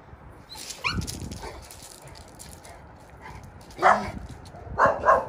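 Dog barking: a short rising yelp about a second in, then one loud bark about four seconds in and two quick barks near the end.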